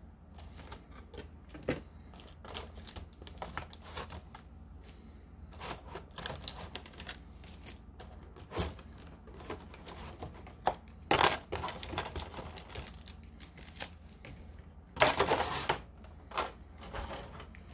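Trading-card packaging and cards being handled: scattered small clicks and taps, with two louder rustles about eleven and fifteen seconds in.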